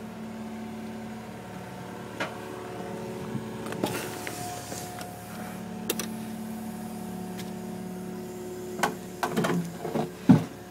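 Hydraulic excavator running steadily during demolition work, its engine and hydraulics giving a held, even tone. Occasional sharp knocks of concrete rubble come in, and a quick cluster of louder knocks comes near the end.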